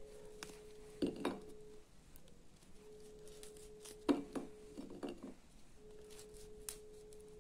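Small knife clinking and tapping against a plate while dried figs are slit open: a couple of sharp clicks about a second in and a cluster of clicks around four to five seconds in. A faint steady tone comes and goes in the background.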